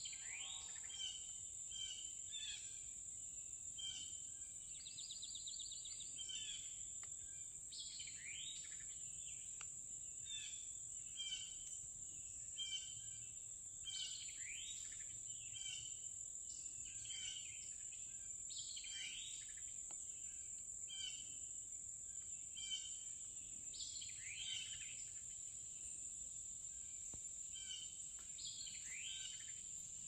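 Wild birds calling over a steady high-pitched drone of insects. The birds give short repeated chirps and a sweeping call every few seconds, with a brief fast trill about five seconds in.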